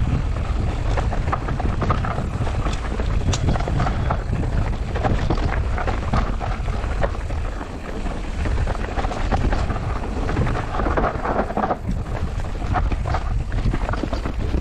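Wind buffeting the microphone and a steady low rumble as an electric mountain bike rides down a rough dirt trail, with tyres on dirt and frequent rattles and knocks from the bike over the bumps.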